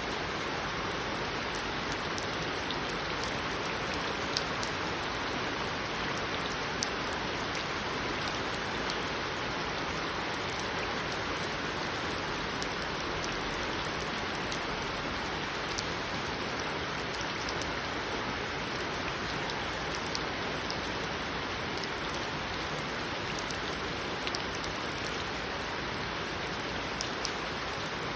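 Steady rain falling in an even hiss, with scattered sharper ticks of single drops.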